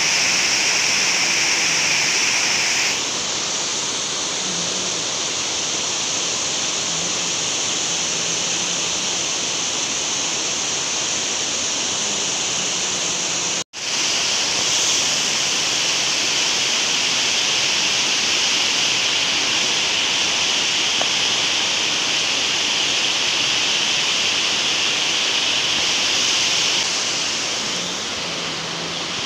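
Water pouring over a low concrete weir and churning in the pool below: a steady rushing of water that cuts out for an instant about halfway through.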